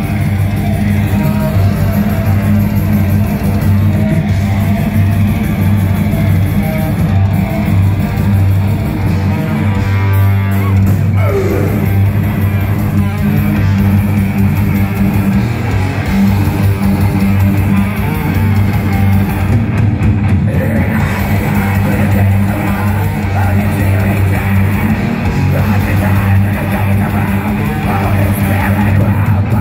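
Black metal band playing live at loud, steady volume: distorted electric guitars over bass.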